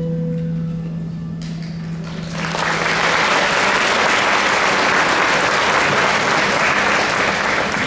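The last held low note of the music fades out, and about two seconds in an audience breaks into applause that holds steady and drops off near the end.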